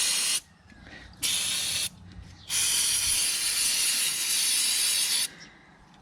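Aerosol can spraying onto a motorcycle's stator wiring connection: two short bursts, then one long spray of nearly three seconds that stops about five seconds in.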